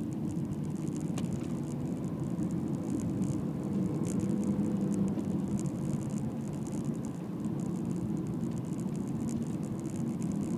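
Inside a moving car: steady engine drone and tyre rumble from driving on a country road, with a faint hiss and a slight swell about four seconds in.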